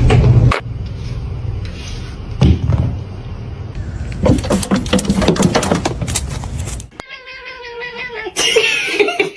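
Cat meowing and yowling across a few short clips that change abruptly, with a drawn-out pitched call near the end.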